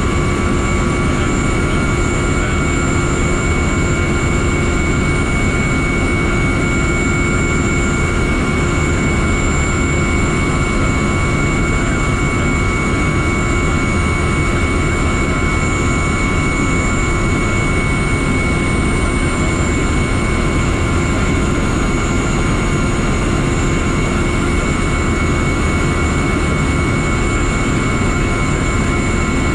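Huey (Bell UH-1) helicopter's turbine engine running steadily on the ground, heard from inside the open cockpit: a constant high whine over a steady low rumble.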